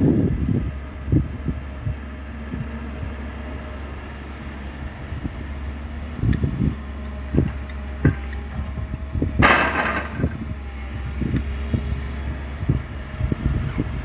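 Komatsu PC200 hydraulic excavator's diesel engine running at a steady low drone as it digs and loads earth, with repeated knocks and thumps from the bucket and arm. About nine and a half seconds in, a short loud rushing noise stands out above the rest.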